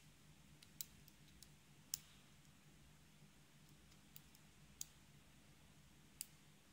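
Faint, irregular small clicks and ticks of a hook pick and tension wrench working the pin stack inside a brass ABUS 85/50 five-pin padlock, over a low steady hum.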